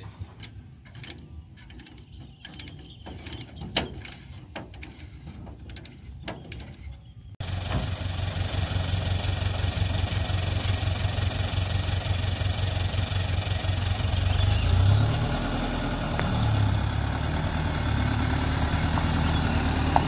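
Faint scattered clanks and knocks. About seven seconds in, a loaded self-loader tow truck's engine comes in abruptly, running steadily with a low drone as the truck drives slowly over a dirt track carrying a bulldozer.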